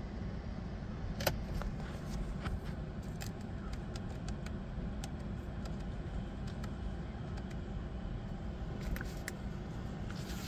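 Steady low rumble inside the cabin of a 2022 Jeep Grand Cherokee 4xe plug-in hybrid, with scattered light clicks and ticks, the sharpest about a second in.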